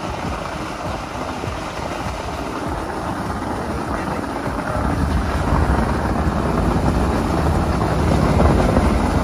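Borewell drilling rig's engine running steadily nearby, a dense rumble that grows louder about five seconds in, with wind buffeting the microphone.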